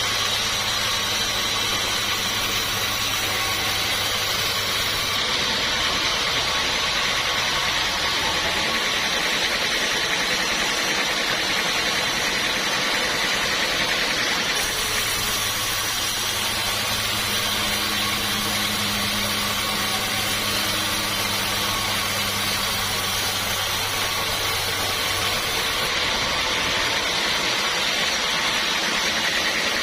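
Sawmill saw machinery running steadily with a constant hiss and a low motor hum that drops out and returns.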